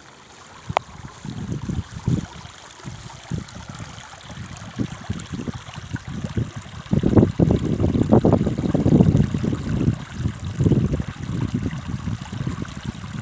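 Creek water flowing and gurgling over stones, in uneven surges that grow loudest in the middle and then ease off.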